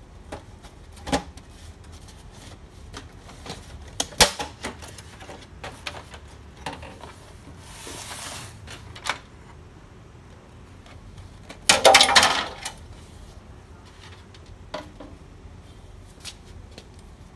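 Clicks and knocks from the plastic casing and open panels of an HP Color LaserJet Pro MFP M181fw laser printer as it is handled and turned on a bench. There is a longer scraping sound about eight seconds in and a loud clatter about twelve seconds in.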